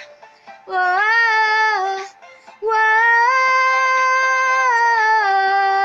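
A high singing voice holding long, drawn-out 'whoa' notes that step between a few pitches, with brief breaks near the start and about two seconds in.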